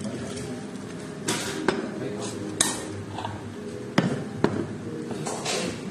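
Restaurant background chatter with a few sharp clinks and knocks of glassware and tableware, four or five in all.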